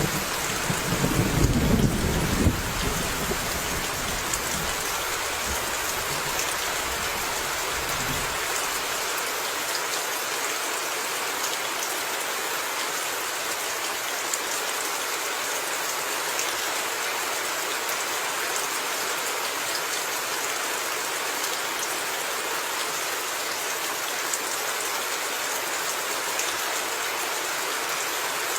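Steady, even rain hissing down. A low rumble of thunder is strongest in the first few seconds and fades out by about nine seconds in.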